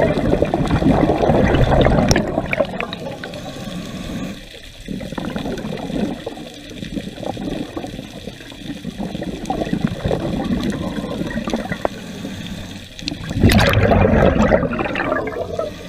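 Scuba diver's exhaled breath bubbling out of the regulator, heard underwater close to the camera: a loud rush of bubbles at the start and again about 13 seconds in, with softer bubbling in between.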